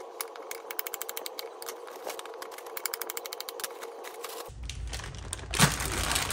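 A kitchen knife slicing a banana on a wooden cutting board: a fast, even run of small taps. About four and a half seconds in it gives way to a louder, noisier sound with one sharp knock.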